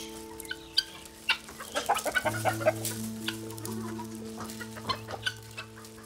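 A feeding flock of chickens and guinea fowl clucking and chirping, with many short sharp calls, over soft background music of held chords that change about two seconds in.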